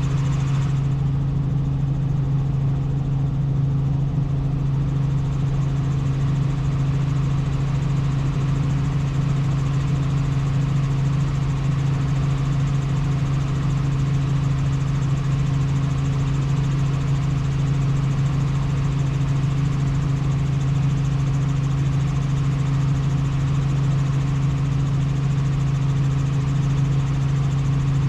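Helicopter in steady flight: a constant drone with a strong, unchanging low hum.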